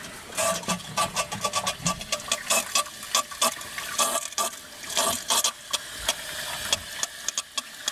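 Water from a garden hose pouring through a cattle float valve and splashing into a plastic bucket as it fills, with many irregular sharp clicks and knocks.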